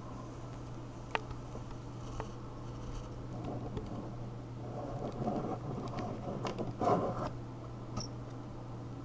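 Clear plastic display case being handled on a wooden table: a couple of sharp clicks early on, then scraping and knocking as it is moved and set down, loudest near the end. A steady low hum runs underneath.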